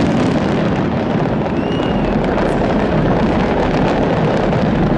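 Fireworks going off in a dense, continuous barrage of crackles and bangs over a steady rumble. A faint whistle rises and falls about two seconds in.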